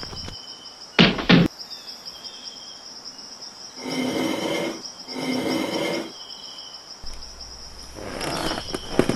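Insects chirring steadily at a high pitch, with a loud double knock about a second in. About four and five seconds in come two pitched calls, each just under a second long.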